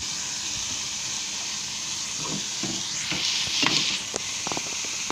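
Sliced onions sizzling in hot oil in a kadai while being stirred, being lightly sautéed to take off their raw smell. Several knocks and scrapes of the stirring spoon against the pan come in the second half.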